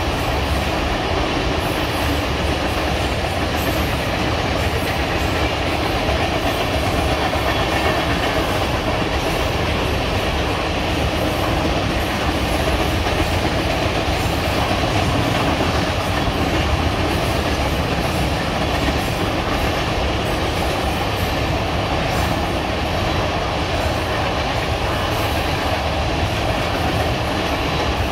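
Railroad tank cars of a long freight train rolling past: a steady rumble and clatter of steel wheels on the rails.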